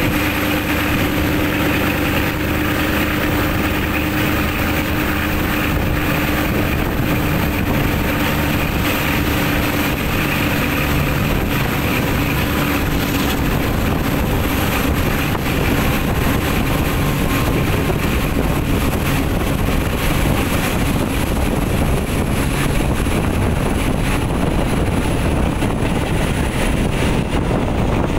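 Steady running noise of a moving passenger train, heard beside an open carriage window: locomotive engine drone and wheels rolling on the rails, with a steady hum that fades about halfway through.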